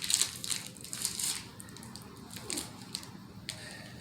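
Plastic popsicle wrapper crinkling and crackling as it is opened, busiest in the first second and a half, then dying down to faint rustling.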